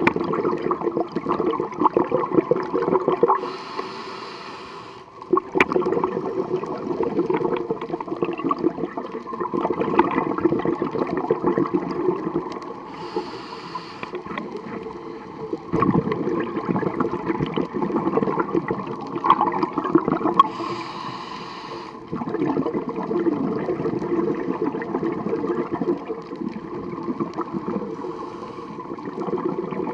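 Scuba diver breathing through a regulator underwater: long rushes of exhaled bubbles, rumbling and crackling, each broken by a short hiss of inhalation, four breaths about eight seconds apart.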